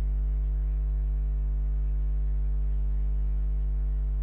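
Steady low electrical hum and buzz, unchanging and without speech: noise in the recording chain.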